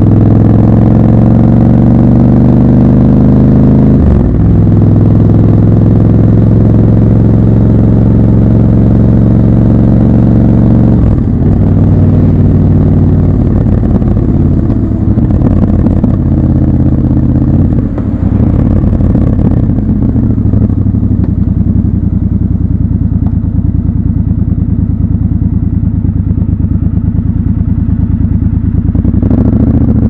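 Triumph Scrambler 1200 XC's 1200 cc parallel-twin engine and exhaust under way: a steady engine note with a short break about four seconds in, then off the throttle from about eleven seconds, the note dropping to a lower, uneven burble as the bike slows.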